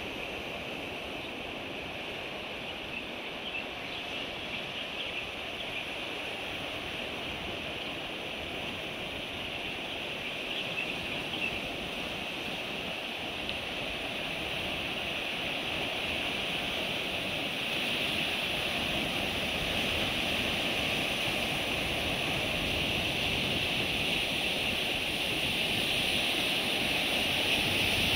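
Sea surf washing over a rocky coral reef shore: a steady rush of water that grows gradually louder, with a steady high hiss over it.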